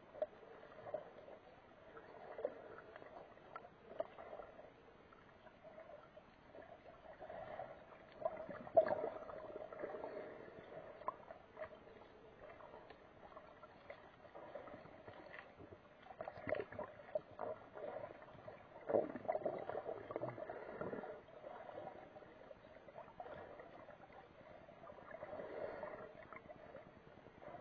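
Muffled water sloshing and whooshing heard through an action camera's waterproof housing just below the surface, swelling and fading several times, with a few small knocks, the loudest about nine seconds in.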